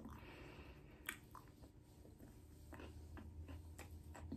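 Faint chewing: a person eating with a few soft, scattered mouth clicks over a low background hum.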